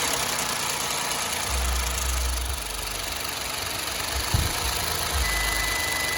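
2012 Hyundai Azera's V6 engine idling steadily, just started on fresh oil and filter for a leak check, heard close to the engine bay. A single short click about four seconds in.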